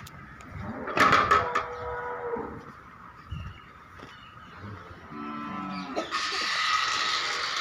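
Cattle mooing, with one low, drawn-out call about five seconds in. Loud noisy bursts come near the start, and a steady hissing rush fills the last second or two.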